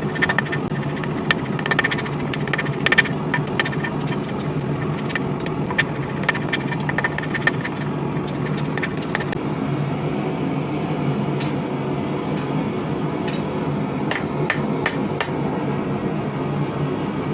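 Hammer blows on a hot coil-spring steel sword blade at the anvil, in quick runs of strikes for about the first nine seconds, then a few scattered blows. Under them runs the steady drone of a propane forge.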